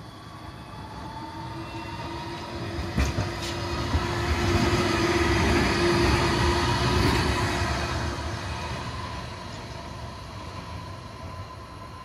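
Electric tram passing by: its running noise and a steady motor whine grow louder, peak about halfway through as it goes past, then fade as it moves away. Two sharp clicks about three seconds in.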